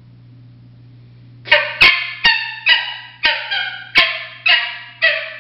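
Mouth-blown coyote howler game call blown in a quick run of about nine short yips and barks, each dropping in pitch at its tail, with a few sharp clicks among them.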